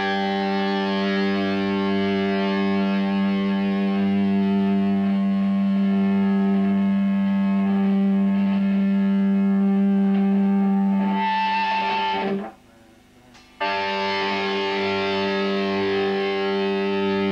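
Distorted electric guitar through a Marshall stack, one low note held on and on by amplifier feedback. A higher feedback tone swells in about eleven seconds in, the sound drops out for about a second, then the held note comes back.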